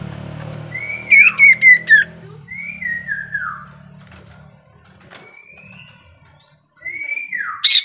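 A caged sirtu songbird singing loud whistled phrases, about four in all, each sliding down in pitch, the first with a rapid trill on top. It is lure song (pancingan) meant to set other sirtu singing.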